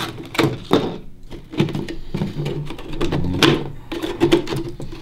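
Scissors cutting through a 3-liter plastic soda bottle: an irregular run of crunchy snips as the blades bite into the plastic and close.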